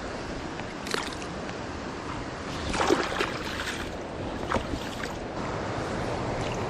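Steady rush of flowing river water, with a few short splashes in the shallows near the microphone about a second in, around three seconds (the loudest) and again near four and a half seconds.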